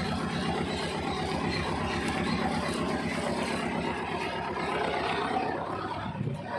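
Toyota FJ40's swapped-in 13B four-cylinder diesel engine running steadily with an even low pulse, the truck crawling along in low gear with no one at the wheel.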